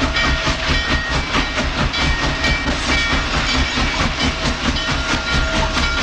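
Norfolk & Western No. 611, a streamlined J-class 4-8-4 steam locomotive, passing close at speed with a rapid, even exhaust beat over the train's clatter on the rails.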